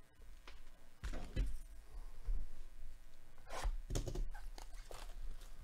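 A cardboard trading-card hobby box handled with gloved hands: scattered rustles and light knocks as it is picked up and turned, over a low rumble.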